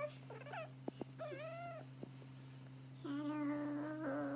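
Domestic cat meowing several times: short meows that rise and fall, then one long drawn-out meow starting about three seconds in. A steady low hum runs underneath.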